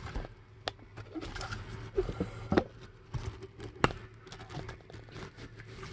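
Handling noise: a few sharp clicks and light knocks with faint rustling as a handheld camera is moved low along a car's side sill, the sharpest click a little under four seconds in. A faint steady low hum runs underneath.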